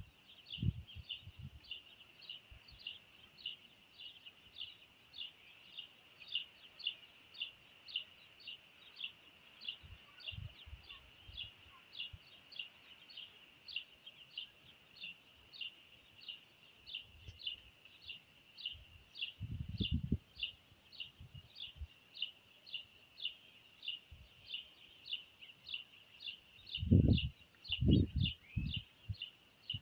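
A bird chirping steadily and monotonously, short high descending chirps about two a second without pause. Dull low thumps twice, about two-thirds of the way in and again near the end, louder than the chirping.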